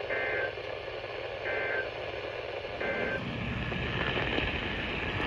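NOAA Weather Radio EAS end-of-message data bursts: three short buzzy digital bursts about 1.3 s apart, heard over radio hiss. They mark the end of the broadcast alert. After the third burst the receiver's static grows louder.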